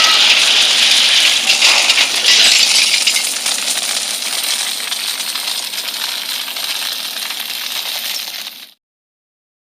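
A dense run of many small, hard clinks and rattles. It is loudest over the first couple of seconds, fades slowly, then cuts off abruptly a little before the end.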